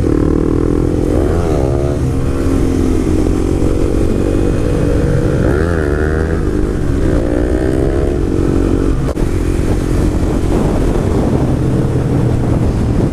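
Honda CBR sport bike with a Yoshimura aftermarket exhaust riding under power, heard from the rider's seat. The engine's pitch climbs and drops three times as the rider works the throttle, with steady wind noise.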